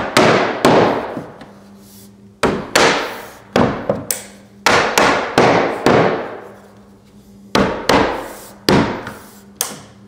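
Small mallet tapping wooden slats home onto hidden Tenso clip connectors, about a dozen sharp knocks, often in quick pairs, each echoing briefly.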